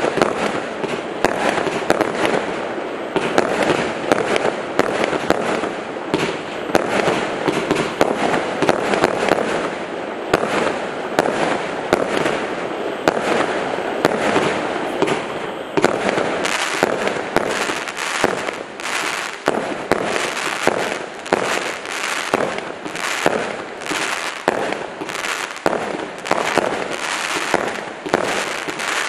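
Kimbolton 'Encore' 100-shot, 25 mm-calibre firework cake firing continuously, its shots and bursts running together densely at first, then from about halfway coming as separate sharp bangs several per second.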